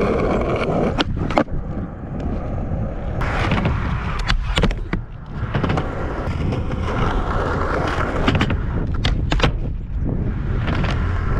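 Skateboard wheels rolling over rough, cracked pavement in a steady rumble, with a few sharp clacks of the board about a second in, around the middle and near the end.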